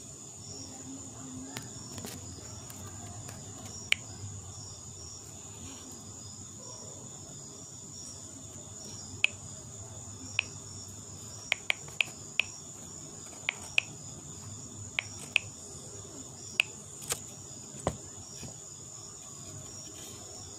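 Insects trilling steadily at a high pitch, with a regular chirping pattern just below the trill. About a dozen sharp clicks stand out, mostly in the second half.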